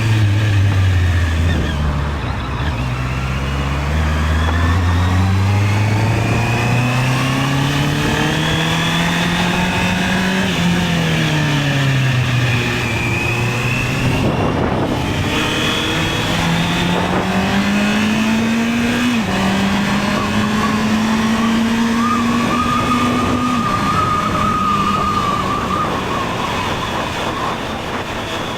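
Honda CB650R's inline-four engine under way, its pitch climbing under throttle, falling as it eases off about ten seconds in, then climbing again. Around two-thirds of the way through there is a quick step down in pitch, an upshift, and the engine backs off near the end.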